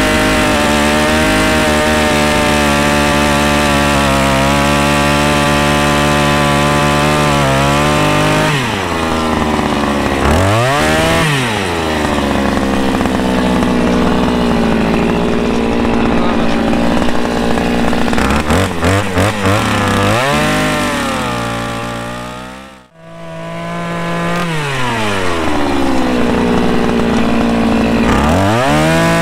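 Small engine of a powered earth auger running hard while boring, its revs dropping and climbing again several times as it works into the soil. The sound breaks off sharply about two-thirds of the way through, then picks up again.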